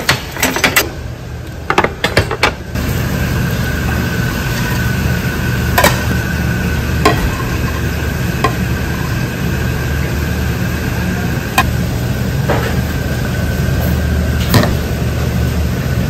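Steady low hum of kitchen machinery with a thin steady whine. Ceramic bowls clink against each other now and then as they are taken from the stack and handled, with a quick cluster of clicks and rustles in the first three seconds.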